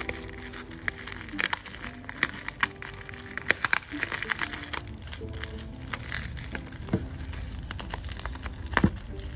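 Bubble wrap crinkling and crackling as hands handle and pull open a small bubble-wrapped package, in irregular sharp crackles with a louder snap near the end.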